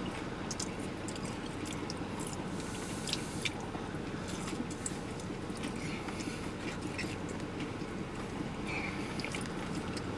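A person biting into and chewing a breaded fried chicken tender: scattered short, soft clicks of the mouth and breading over a low, steady hum.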